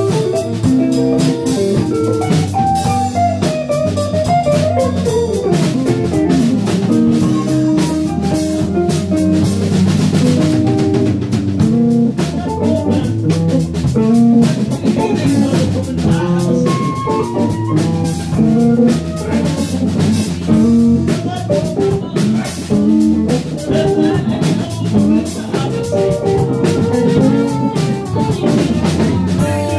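Live band playing an instrumental jam: drum kit, electric guitar and Fender electric bass, with a melodic lead line over the groove.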